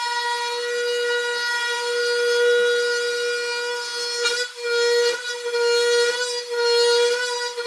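A woodworking power tool running with a loud, steady high-pitched whine; its loudness dips briefly a few times in the second half.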